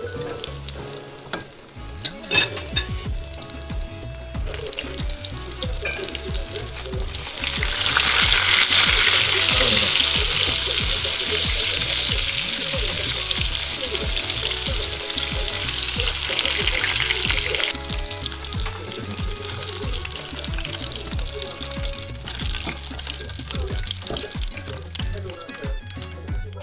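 Breaded chicken breast pieces deep-frying in hot oil, a steady sizzle that grows much louder about seven seconds in and eases back after about ten seconds. A couple of sharp clicks about two seconds in.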